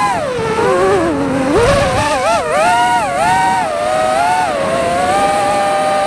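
Small quadcopter drone's electric motors and propellers whining. The pitch dips low a second or so in, wavers up and down as the throttle changes, then holds fairly steady through the second half.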